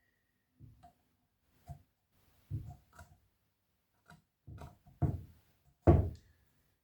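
Scattered light knocks and clicks of hands handling a circuit board and tools on a workbench, about eight in all, the loudest two near the end.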